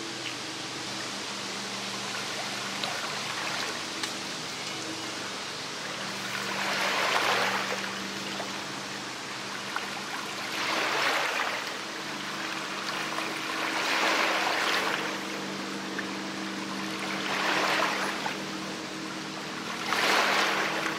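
Danube river water washing onto the beach in regular swells about every three to four seconds, over steady water noise and a faint low hum.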